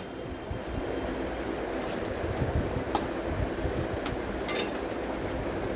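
A metal spatula stirs and scrapes a thick spice paste frying in a steel kadai, over a steady low rumble. A couple of sharper scrapes come about three seconds and four and a half seconds in.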